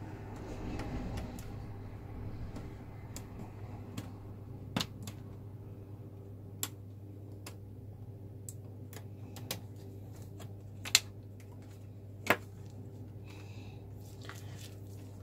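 Scattered small plastic clicks and taps as fingers unlatch and pull ribbon-cable connectors on a laptop's motherboard, over a steady low hum. Two sharper clicks stand out in the second half.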